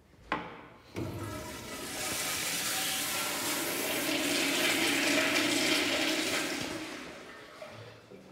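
Commercial toilet with a chrome flushometer valve flushing: a short click, then a rush of water that builds, holds loud for several seconds and tapers off near the end.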